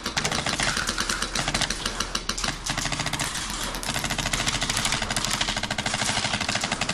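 Airsoft guns firing on full auto: a fast, steady rattle of shots in long strings, most regular in the second half.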